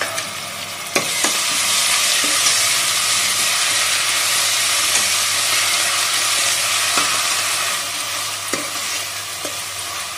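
Ginger-garlic paste sizzling in hot oil with browned onions in a stainless steel pressure cooker, stirred with a metal spoon that clicks and scrapes against the pot. The sizzle swells about a second in and eases a little near the end.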